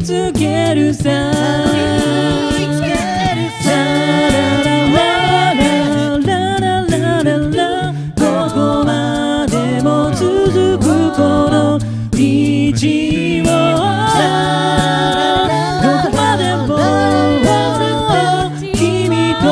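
A six-voice a cappella group singing in close harmony. A low bass voice carries the bottom line, and mouth-made vocal percussion clicks and ticks keep the beat.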